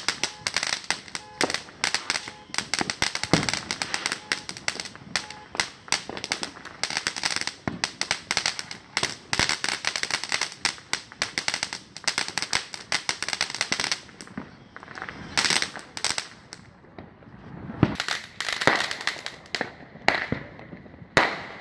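Crackling ground fountain firework spraying sparks, with a dense, rapid crackle. About fourteen seconds in, the crackle thins out to scattered pops and a few louder bangs from aerial fireworks.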